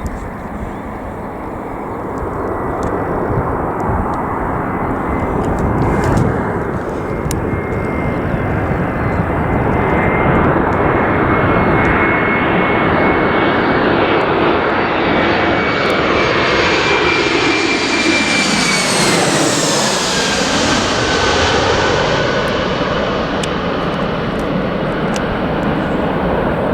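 Landing aircraft's engines approaching and passing close by, growing louder over the first dozen seconds. A high steady whine with overtones drops in pitch about twenty seconds in as the aircraft goes past.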